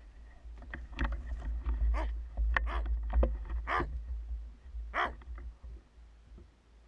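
Roe deer barking in alarm as it runs off, a series of short gruff barks about a second apart: the deer has seen the stalker.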